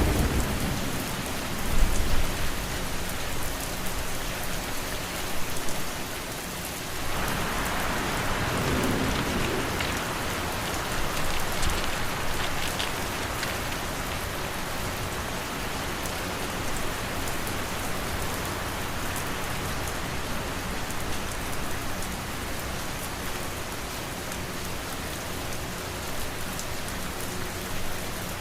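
Steady rain falling on a surface, an even hiss with scattered drops, with a low rumble of thunder dying away in the first couple of seconds and a swell in the noise about a quarter of the way in.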